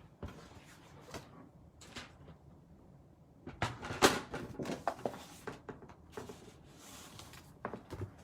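Papercraft supplies being handled on a work desk: scattered clicks and knocks, with a busier patch of clatter and rustling from about three and a half to five and a half seconds in, loudest near four seconds, and a few more knocks near the end.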